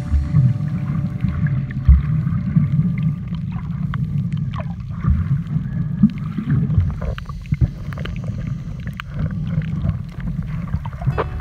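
Muffled underwater sound picked up by a phone's microphone below the surface: an uneven low rumble of moving water with scattered clicks and knocks.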